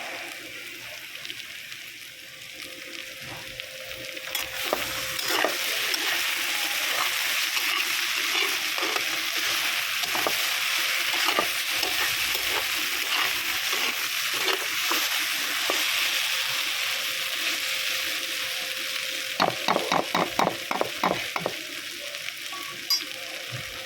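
Mixed vegetables sizzling in hot oil in a pan while being stirred, with a spatula knocking against the pan now and then. The sizzle swells about four seconds in, and near the end comes a quick run of about eight knocks.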